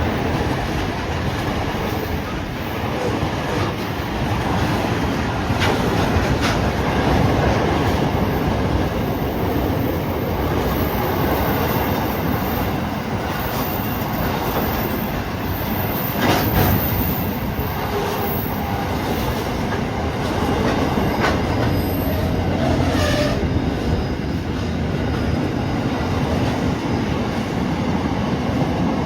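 A train running along the track, with a steady rumble of wheels on rail and a few sharp clicks as wheels pass over rail joints.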